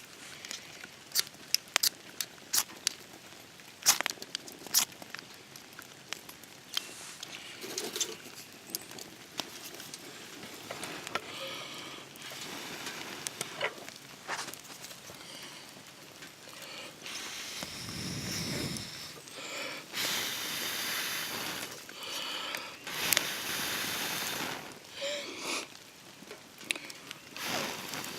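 Spark striker being struck onto char cloth: a run of sharp clicking strikes in the first few seconds, then scattered clicks, and several longer hissing bursts of noise in the second half.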